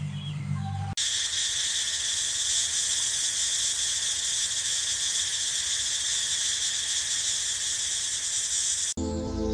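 Steady high-pitched insect chorus that cuts in about a second in and cuts off suddenly near the end.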